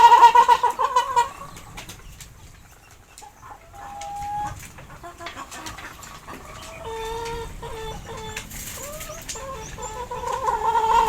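A chicken calling: a long drawn-out call dies away about a second in, a few short clucking notes follow, and another long call starts near the end.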